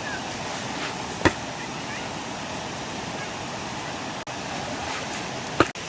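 Stream water rushing steadily, with two sharp knocks: one about a second in and one near the end.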